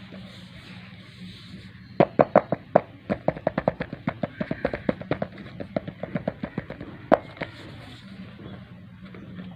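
Packaging being handled and opened, a rapid run of sharp clicks and crackles that starts about two seconds in and dies away after about five seconds, over a steady low hum.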